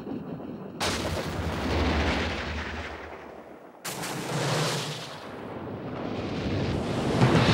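Thunder: a sudden clap about a second in that rumbles on for a few seconds, then a second clap a little before halfway that rumbles and builds toward the end.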